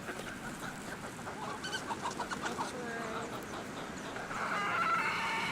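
Feral chickens clucking in short, scattered calls as they crowd in to peck at bread pieces, with a louder, longer call about four and a half seconds in.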